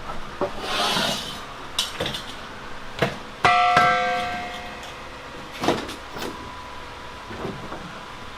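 Scattered knocks and clicks, with one loud metallic clang about three and a half seconds in that rings for about a second, and a faint steady high tone after it.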